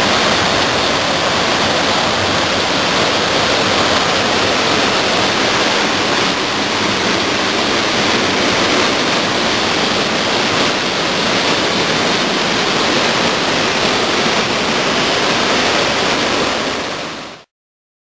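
Waterfall pouring over rock into a pool: a loud, steady rush of falling water that fades out near the end.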